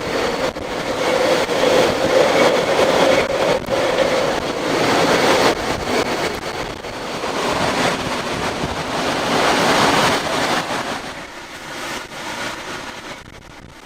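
Hurricane-force wind and rain, a loud steady rushing noise with a held tone in the first few seconds, easing off near the end.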